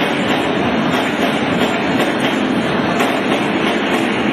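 Steady, loud mechanical noise of workshop machinery in a factory hall, with faint irregular clicks through it.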